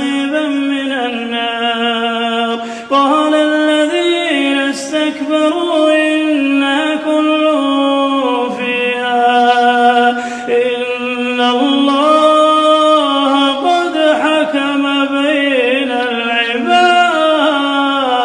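A single voice reciting the Quran in a slow, melodic tajweed style: long held notes with ornamented turns in pitch, and a short break for breath about three seconds in.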